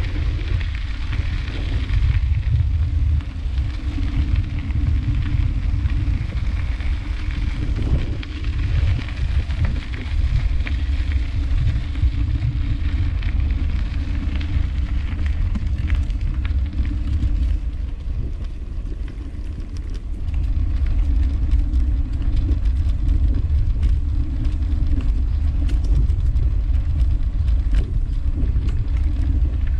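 Wind rumbling on the microphone of a camera riding on a moving bicycle, over the crackle of bicycle tyres rolling on a gravel park path. About twenty seconds in it gets louder as the tyres rattle over cobblestones.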